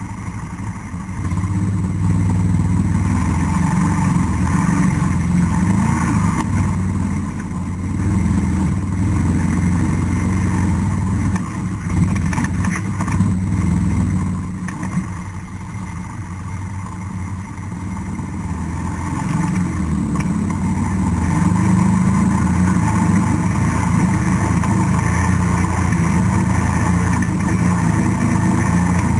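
ATV (quad) engine running, its note rising and falling with the throttle, easing off for a few seconds past the middle and picking up again. A few short knocks about twelve seconds in.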